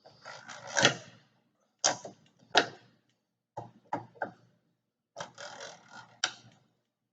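Clicks and scraping in four short bursts as the fittings of a bench brake lathe are loosened by hand to set the cutting head at a slight angle.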